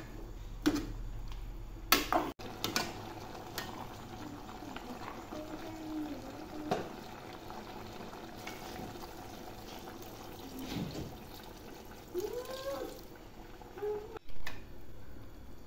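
Metal ladle clicking and scraping against a steel pot as bamboo shoots and eggplant are stirred, then water pouring into the pot, with a loud splash just after fourteen seconds.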